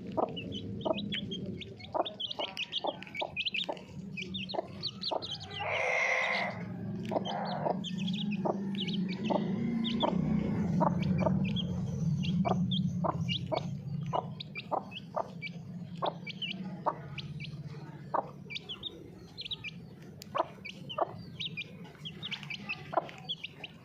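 Aseel mother hen clucking while her chicks peep in short high chirps, over frequent sharp taps of beaks pecking at feed.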